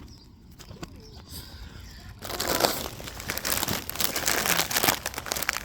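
Crinkling and rustling of a plastic wrapper or packet being handled, starting about two seconds in, thick with small crackles.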